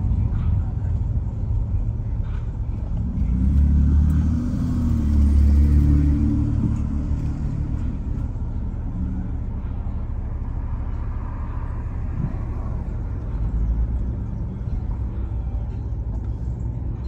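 Car driving at low speed, its engine and road rumble heard from inside the cabin, swelling for a few seconds about three seconds in.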